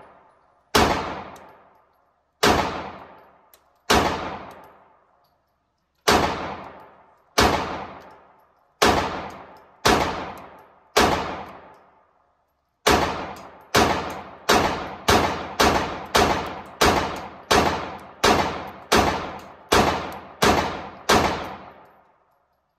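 Ported SIG P320 pistol firing at an indoor range, each shot echoing off the walls. About eight slow, aimed shots a second or two apart, then after a short pause a fast string of about seventeen shots at roughly two a second. The string ends when the magazine runs empty and the slide locks back.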